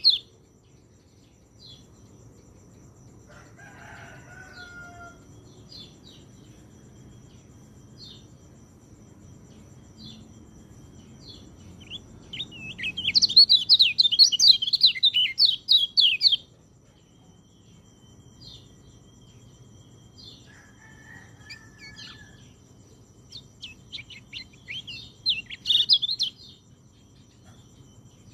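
Peleci (orange-headed thrush) singing: a loud burst of fast, varied, high warbling about halfway through and another near the end, with short single chirps scattered in between. Two fainter, lower calls come about 4 s in and again about 21 s in.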